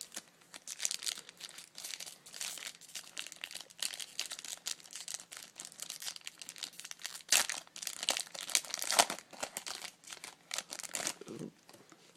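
Foil wrapper of a Topps Chrome trading card pack crinkling and being torn open, a dense crackling throughout, with the sharpest rips about seven and nine seconds in.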